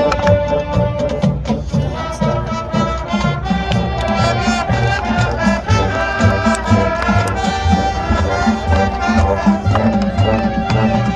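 Marching band playing: sustained wind notes in a melody over a steady low drum beat.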